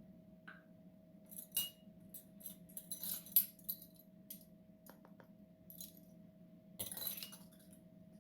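Measuring spoons jangling and clinking against a glass bowl while ground spices are scooped and tipped in: a scatter of light clinks and rattles, busiest about three seconds in and again near the end.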